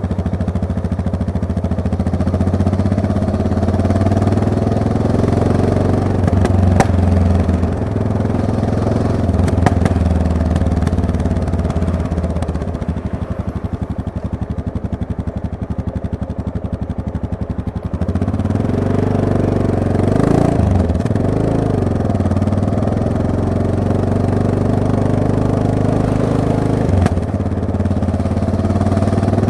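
Yamaha MT-03 motorcycle engine running under way, its revs rising and falling with throttle and gear changes. About halfway through it settles lower and quieter for several seconds, then revs up and down again, with a few sharp clicks.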